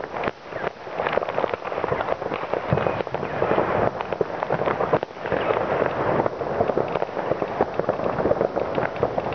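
Many fireworks and firecrackers going off at once: a dense, unbroken crackle of overlapping pops and bangs.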